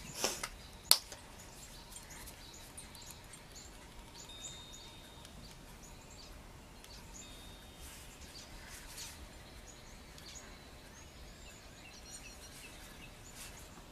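Two sharp clicks in the first second as the flip-top cap of a plastic acrylic paint bottle is snapped open, the second the louder. Faint songbird chirps follow.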